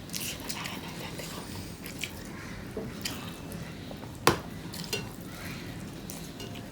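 Eating sounds from rice and fish curry: soft wet squishing and chewing, with scattered light clicks of dishes and one sharp knock about four seconds in.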